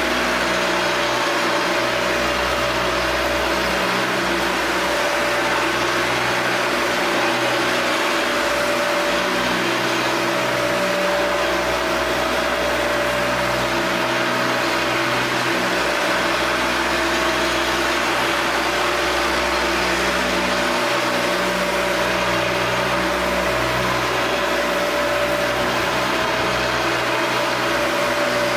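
U-Sand four-disc floor sander with 80-grit discs running on a hardwood floor, a steady hum and whir, together with the shop vacuum hosed to it pulling away the dust.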